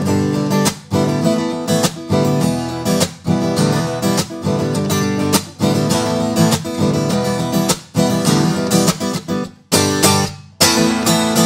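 Acoustic guitar playing strummed chords in quick repeated strokes, with a short break about ten seconds in. An EQ boost around 5 kHz brings the midrange forward.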